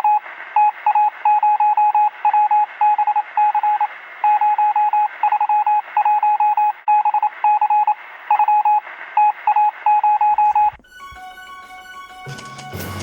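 Morse code beeps over radio static: one tone keyed on and off in short and long marks. It cuts off about eleven seconds in, and music starts.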